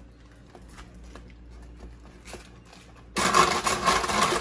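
Quiet jar handling with faint clicks, then about three seconds in an Oster countertop blender switches on and runs loud and steady, grinding graham crackers into crumbs.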